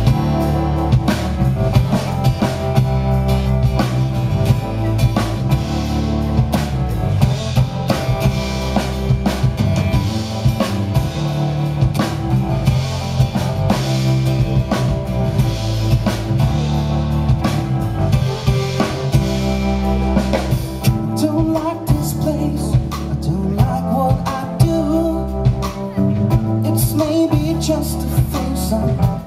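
Live pop-rock band playing through a stage PA: a steady drum-kit beat with electric bass, acoustic guitar and keyboard.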